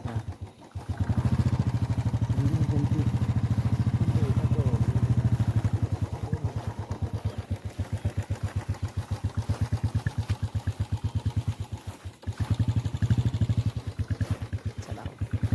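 Motor vehicle engine running with a fast, even pulse. It swells about a second in, eases after about six seconds, drops out briefly near twelve seconds, then picks up again.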